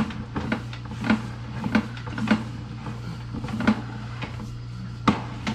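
Sewer inspection camera's push cable being fed down the line: a series of sharp knocks and clicks, roughly one every half second to second, over a steady low hum.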